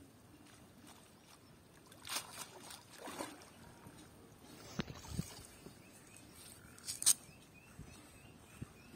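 Wet cast net being dipped and pulled through shallow pond water, giving a few separate splashes and sloshes, the loudest about seven seconds in.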